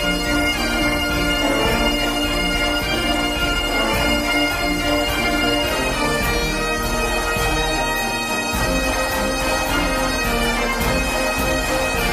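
Background music: bagpipes playing a tune over a steady drone.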